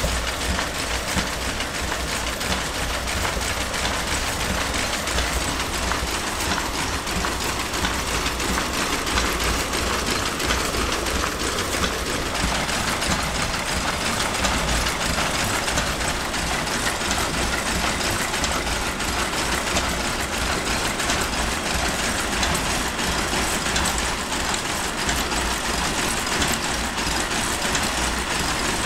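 Power looms weaving korai grass sleeping mats, running with a steady, dense mechanical clatter.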